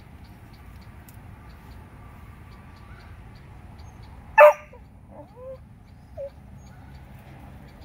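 A dog gives one short, sharp bark about four and a half seconds in, followed by a few faint, short whines.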